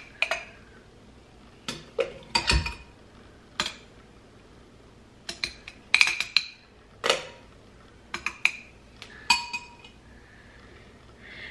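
A metal spoon clinking and scraping against the inside of a glass jar as it scoops and stirs blended frozen strawberries, in irregular single clinks with a short ring, and one duller knock about two and a half seconds in.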